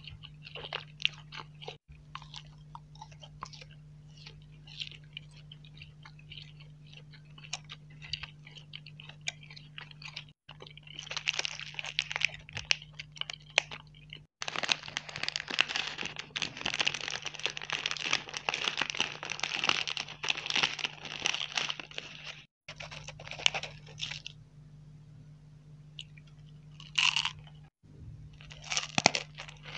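Close-miked eating sounds: first soft, sparse chewing of nut-studded nougat. Then a long stretch of crinkling as a plastic Raffaello wrapper is opened. Near the end come a few crunchy bites into a Raffaello coconut-almond ball.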